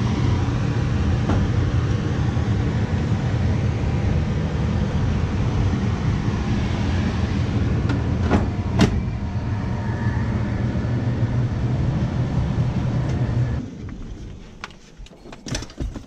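Steady hum and rush of air from a running furnace blower, with two sharp clicks a little past halfway. About three-quarters through it cuts off abruptly, leaving a quieter background with a few knocks and thuds.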